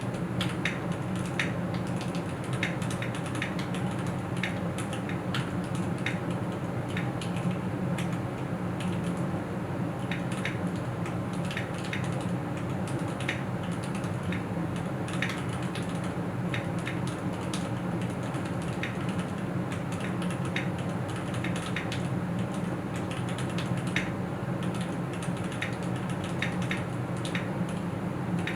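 Typing on a Keychron Q6 aluminium-bodied mechanical keyboard with Gateron G Pro switches: a steady, irregular run of key clicks, several a second, over a low steady hum.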